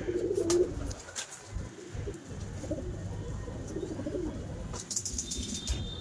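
Domestic pigeons cooing on and off, with a few short clicks near the end.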